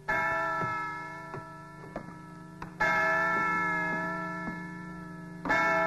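A large bell struck three times, about two and a half seconds apart, each stroke ringing on with many steady tones and slowly dying away, over the steady ticking of a clock.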